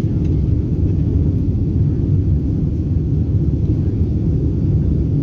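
Steady low rumble of a jet airliner's engines and airflow, heard inside the passenger cabin during the climb-out after takeoff.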